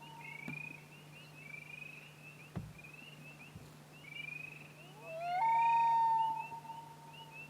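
A common loon wailing: one long call that rises in pitch about five seconds in, then holds a steady note before fading. Short repeated high chirps go on throughout over a faint steady low hum.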